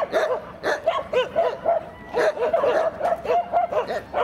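Dogs barking: short, high, arched barks about two a second, crowding together and overlapping in the second half as more than one dog joins in.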